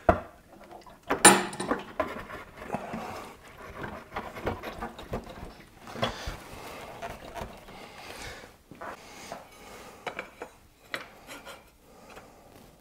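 Hands refitting a motorcycle's fuel tank and parts: a loud knock about a second in as the tank is shifted onto its mounts, then irregular small clicks, rattles and knocks of plastic and metal parts and a hand tool.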